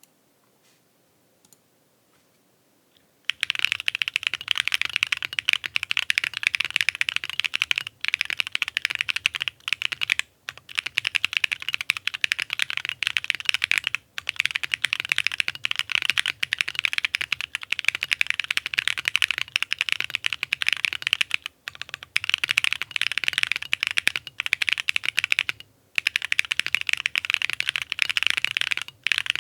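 Rapid typing on a custom 60% mechanical keyboard with stock Gateron Baby Kangaroo tactile switches on a POM plate, giving a clacky sound. It starts with a few faint clicks, then becomes continuous fast typing about three seconds in, broken by a handful of brief pauses.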